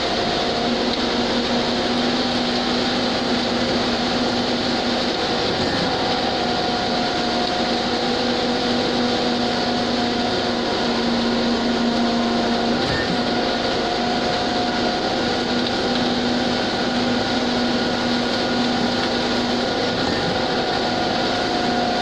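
Steady drone of a concrete mixer truck's engine and turning drum together with a concrete pump, while wet concrete is discharged down the truck's chute into the pump hopper. The pitch shifts slightly now and then.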